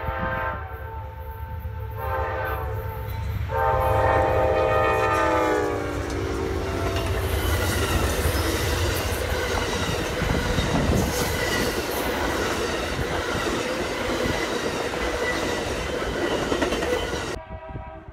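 Amtrak passenger train passing close by: the locomotive's multi-tone air horn sounds several blasts, the last one long and loudest, dropping in pitch as the engine goes by. Then the steady rumble and clickety-clack of the bi-level passenger cars rolling past, which cuts off suddenly near the end.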